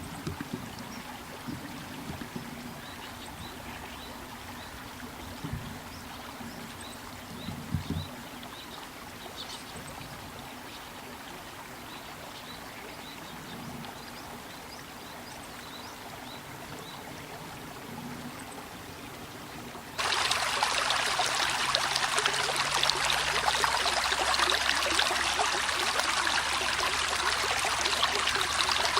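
Rushing river water, which jumps suddenly much louder about two-thirds of the way through. Before that it is a fainter, steady water sound with faint short high calls of little ringed plovers and a few low thumps.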